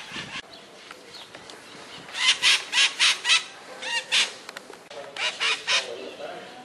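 White-eyed parakeets giving harsh screeching calls in quick runs: about five screeches a couple of seconds in, two more around the middle, and a short run of three or four near the end.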